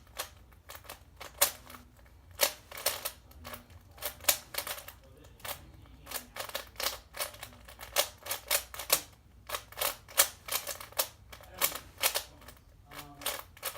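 Rubik's Cube being turned rapidly by hand: a quick, irregular run of plastic clicks and clacks as the layers snap round, several turns a second.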